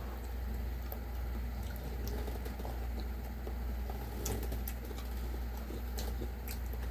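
Someone eating: scattered small clicks and crackles of chewing and handling food, over a steady low hum.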